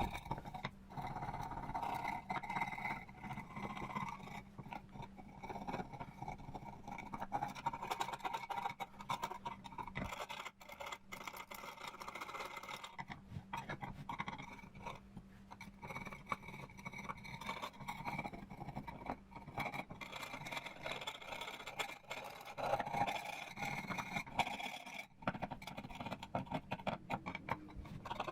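Irregular scraping and scrubbing of a tool working over a metal plate, with many small scratchy clicks and a faint steady hum underneath.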